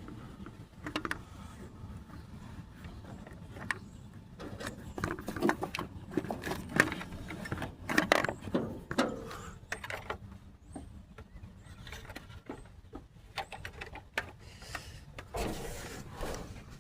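Hands working in a cramped spot among a pickup truck's wiring and parts: scattered clicks, knocks and rustling, busiest and loudest in the middle.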